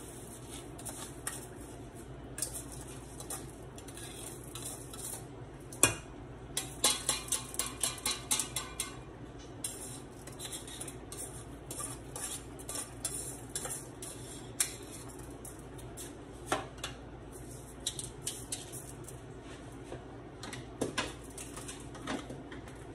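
Metal spoon clinking and scraping against a metal mesh strainer and the pot as washed rice is knocked out into the pot. There is one sharp knock about six seconds in, a run of quick clinks about five a second just after it, and scattered single knocks later.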